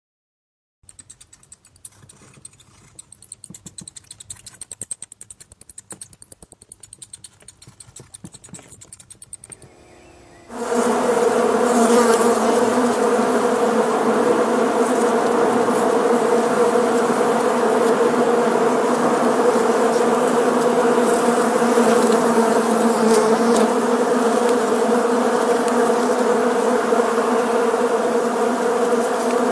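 Rapid faint clicking for the first ten seconds or so. About ten seconds in, it gives way suddenly to the loud, steady buzz of many honeybees' wings, a dense hum with several steady tones.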